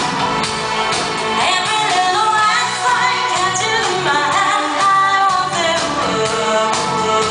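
Live synth-pop band playing over a steady drum beat, with a woman singing into a microphone; her voice comes in about a second and a half in.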